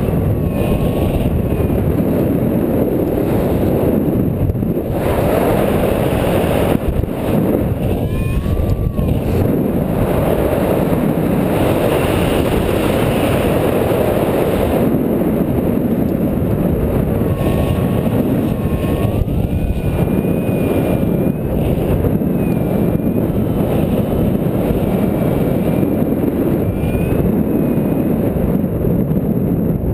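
Steady rush of airflow over a camera microphone on a paraglider harness in flight. Faint, wavering whistle tones come and go above it.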